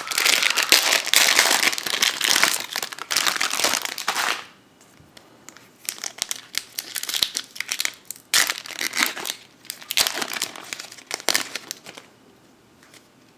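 Foil Pokémon booster-pack wrapper crinkling as it is opened and handled: dense, continuous crinkling for about four seconds, then shorter spells of crinkling and rustling that die away near the end.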